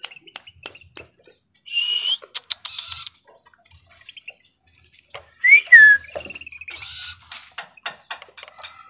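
Caged sirtu songbird calling: short harsh chirps, with a loud pair of quick gliding whistled notes a little over halfway through. Many light clicks and taps run under the calls.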